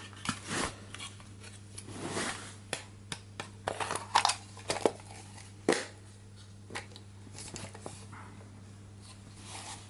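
Agifold folding medium-format camera being handled: irregular clicks, knocks and crinkling rustles, the loudest about four to six seconds in, over a steady low hum.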